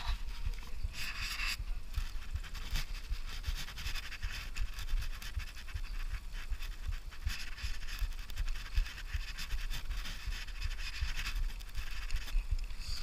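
Wind buffeting the microphone of a camera mounted on the handlebars of a moving Brompton folding bicycle, with a rumble throughout. A hiss of riding and road noise swells and fades several times.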